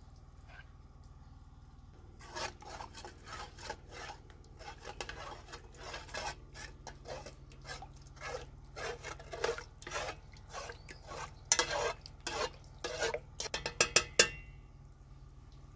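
Metal spoon stirring and scraping in an aluminium pot, mixing melted animal fat into a white liquid, in irregular strokes that start about two seconds in. Near the end the spoon strikes the pot several times with sharp clinks, the last one ringing briefly.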